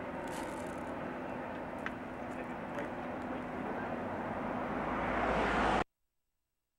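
Steady road and engine noise of a moving car, growing louder over several seconds, then cutting off abruptly about six seconds in.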